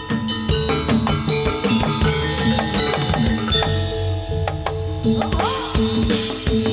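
Live jathilan accompaniment music: loud, busy drumming with held ringing tones beneath it.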